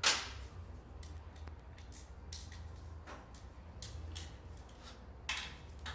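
A hand tool tightening a motorcycle exhaust muffler clamp: one sharp metal click, then a few scattered short clicks and rasps as the tool works the clamp.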